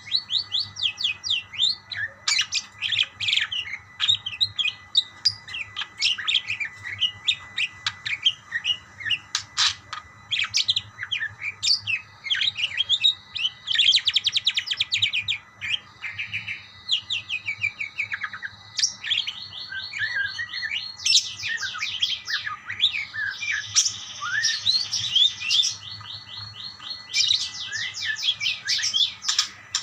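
Several parakeets chirping and chattering back and forth in quick, high notes with fast rattling trills. The calling gets denser and more continuous in the second half.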